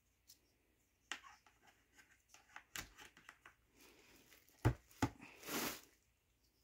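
Hard plastic parts of an under-sink shelf unit being handled: scattered light clicks, then two sharp knocks about two thirds of the way in, followed by a brief rustle.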